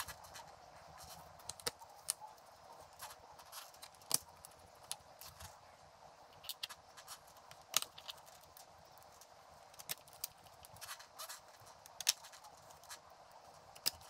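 Light, irregular clicks and taps of screws and a small screwdriver against a Lenovo Legion 5 laptop's bottom panel as the panel's screws are put back in and tightened.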